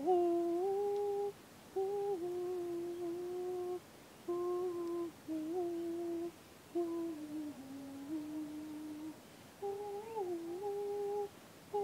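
A woman humming a slow melody with closed lips, in phrases of a second or two broken by short pauses.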